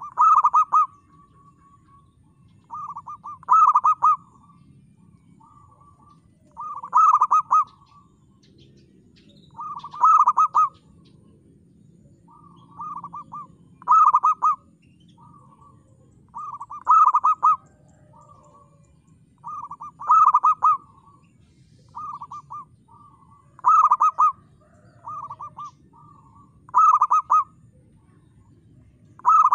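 Zebra dove (perkutut) cooing its song over and over, about one phrase every three seconds: each phrase is a few softer coo notes followed by a loud rolling coo.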